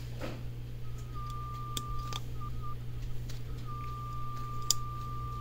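A thin, steady electronic whine on a single high pitch that switches on and off in stretches of up to about two seconds. A few sharp clicks come from the switches and push-buttons of a DE10-Lite FPGA board being pressed. A steady low hum lies underneath.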